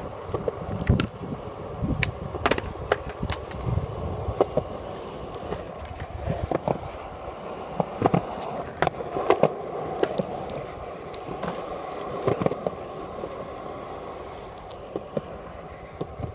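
Skateboard wheels rolling over concrete: a steady rolling rumble broken by many sharp clicks and knocks.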